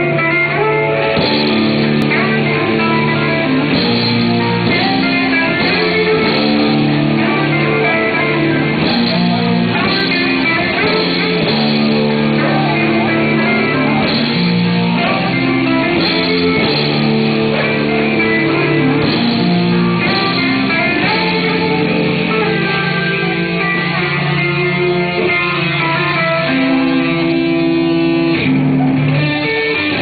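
Live music led by guitars, steady and loud, with held notes that change every second or two and no clear singing.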